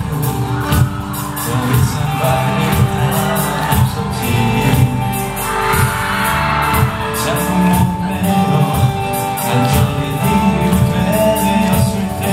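Live pop song with a steady beat from a backing track, a male singer singing into a handheld microphone over it, with fans screaming and cheering in a large hall.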